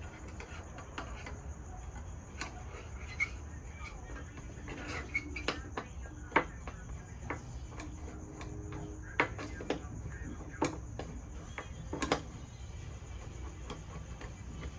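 Crickets chirring in a steady high-pitched drone, with scattered light clicks and knocks from handling a fuel jug and its clunk line.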